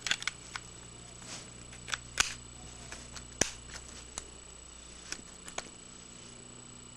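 Small sharp plastic clicks and taps from a handheld camcorder being handled, scattered irregularly, the loudest about two seconds in.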